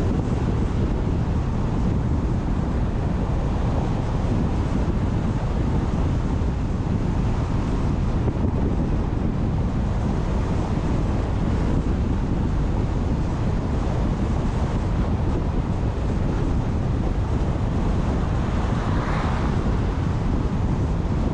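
Steady wind and tyre noise of a car driving at speed, with wind rushing over the microphone and a short brighter swell near the end.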